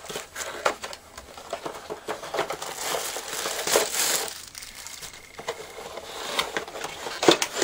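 Clear plastic packaging bag crinkling as a webcam is slid out of its cardboard box, with irregular rustles and small clicks of the box being handled.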